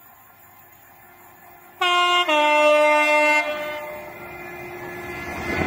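Loud two-tone diesel locomotive horn about two seconds in: a short higher note, then a longer lower one, about a second and a half in all. It is followed by the rising rumble of the fast train as it nears.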